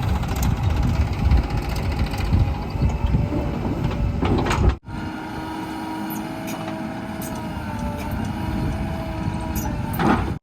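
Heavy diesel machinery running: a loud, low engine rumble for about the first half, then an abrupt cut to a quieter engine with a steady, slightly wavering whine.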